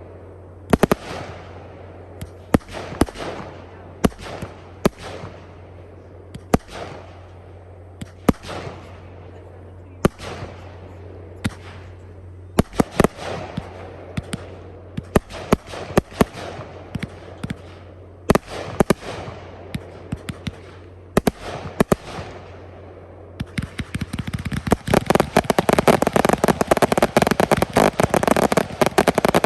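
Fireworks display: sharp bangs of shells bursting every second or two, often in quick pairs, then from about 24 seconds in a dense barrage of rapid bangs and crackling.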